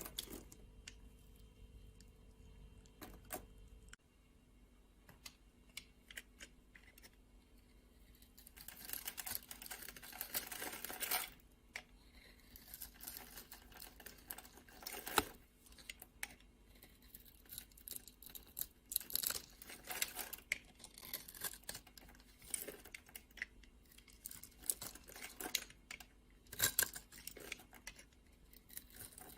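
Bars of soap being chopped with a knife: many crisp crunching clicks and snaps, with a few seconds of continuous scraping about a third of the way in and one sharp snap, the loudest, about halfway through.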